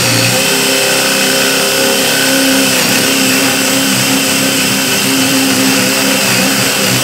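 DeWalt DCD996 brushless cordless hammer drill running continuously under load, boring a spade bit into a wooden post. The motor hum wavers a little in pitch as the bit bites into the wood.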